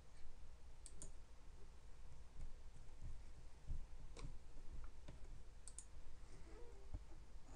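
Computer mouse button clicked twice, about a second in and again near the end, each a quick pair of clicks from press and release, over a faint low hum.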